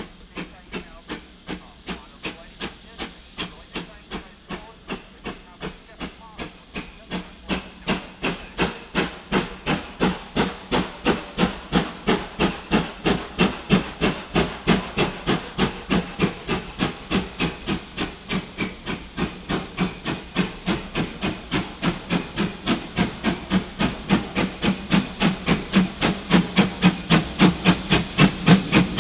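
GWR Hall class 4-6-0 steam locomotive pulling away with a passenger train, a steady beat of exhaust chuffs, about three a second, growing louder as it draws nearer.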